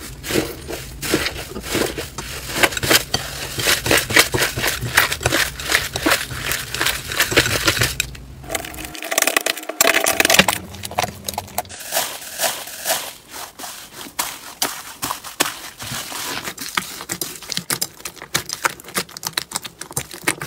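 Hands squeezing and kneading slime, with dense crackling and popping clicks. The texture changes twice as the slime being handled changes.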